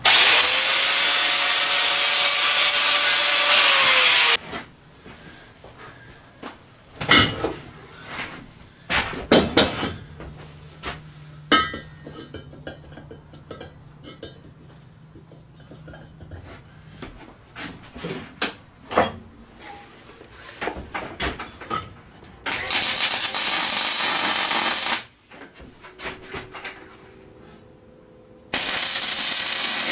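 Angle grinder with a flap disc grinding a thick steel plate for about four seconds, its whine dropping in pitch as it stops. Several clanks of square steel tubing being set on the plate follow, then two short bursts of arc welding as a leg is tacked on near the end.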